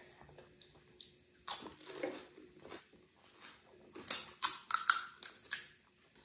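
Crisp panipuri shells crunching: a crack about a second and a half in, then a quick run of about six sharp crunches between four and five and a half seconds in.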